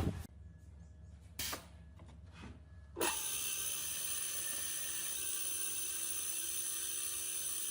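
An electric power tool starts suddenly about three seconds in and then runs steadily with a constant whine. Before that there is a near-quiet stretch with two brief knocks.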